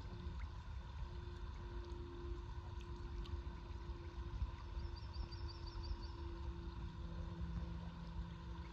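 Low, steady outdoor rumble around a small boat on a river, with a faint steady hum under it. A short high bird trill of about ten quick notes comes about five seconds in.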